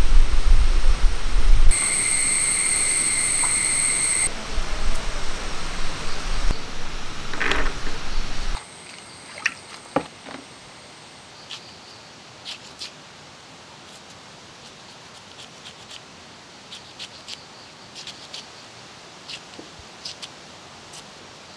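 Outdoor ambience with a heavy low rumble and, for a few seconds, a steady high-pitched buzz. After about eight seconds it drops to a quiet background with scattered light clicks and taps from hand work with green chillies and a knife over clay and wooden bowls.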